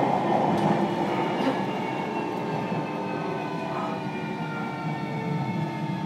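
A JR Kyushu 305 series electric train running, heard inside the motor car: a steady rumble from wheels and underfloor equipment, growing quieter over the first couple of seconds. Several thin tones from the traction motors and VVVF inverter sit on top of it, a few of them slowly falling in pitch.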